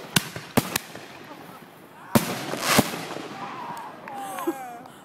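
Consumer firework mortar shell bursting overhead: three sharp bangs in the first second, then a louder half-second hiss about two seconds in that ends in another sharp bang. Faint voices near the end.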